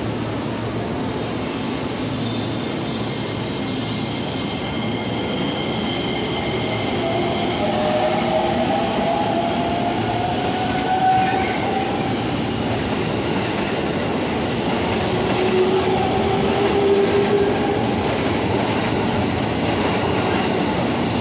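Commuter electric train running at the station platform: a steady rumble of wheels on rails, with a whine that rises slowly in pitch around the middle and again a little later.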